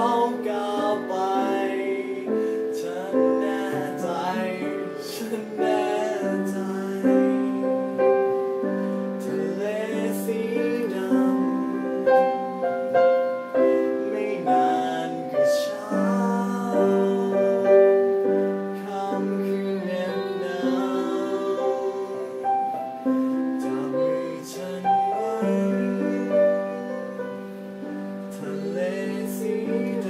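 A man singing a Thai song with piano accompaniment.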